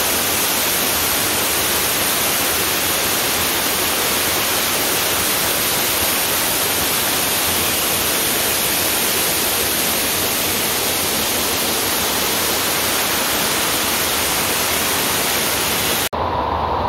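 Waterfall splashing onto a rock ledge: a steady, loud rushing hiss of falling water. Near the end it cuts suddenly to a different, duller rush of water.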